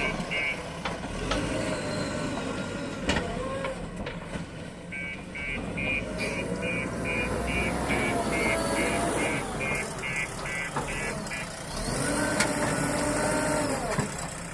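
Diesel engine of a JCB 3DX backhoe loader working, its pitch rising and falling as it loads, with a reversing alarm beeping about twice a second, briefly at the start and again for several seconds in the middle.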